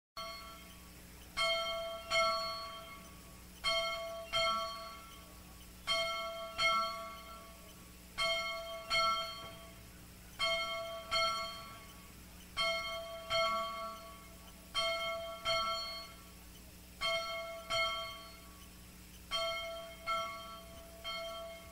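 A bell ringing in pairs of strokes, a new pair about every two seconds, each stroke ringing on and fading before the next.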